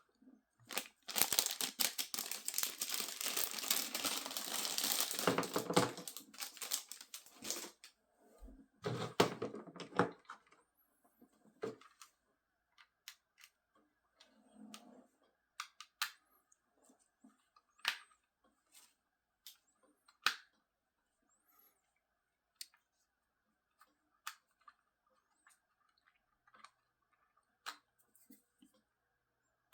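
Packaging torn open and crinkled for several seconds, then a shorter burst of handling, followed by scattered small clicks and taps of small parts being handled.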